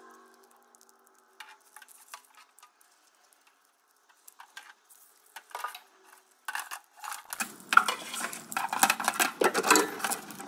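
Wiring harness in corrugated plastic loom being handled and laid out on a work surface: scattered light clicks and taps, then from about six and a half seconds a dense run of clattering and rustling as the harness and its connectors are set down and sorted.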